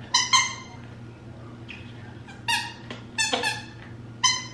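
Outward Hound Triple Jack rubber dog toy being squeezed by hand, its squeaker giving about six short, high squeaks, some in quick pairs. The squeaker is stiff and takes a hard squeeze to sound.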